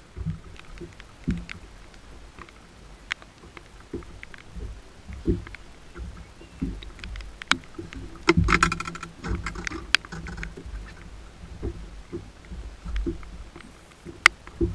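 Knocks and water on the deck of a bass boat in the rain: irregular low thumps and sloshing against the hull, and sharp ticks of raindrops on the camera housing. About eight seconds in there is a louder knocking clatter of gear being handled on the deck.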